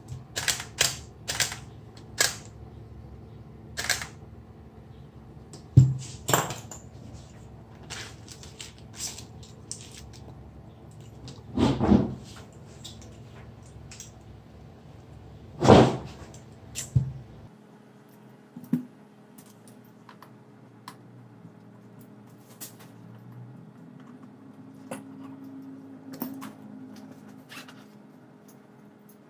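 Irregular small mechanical clicks and taps from hand work on a Nikon DSLR's shutter assembly, a few of them louder with a dull knock. A low background hum stops about two-thirds of the way through.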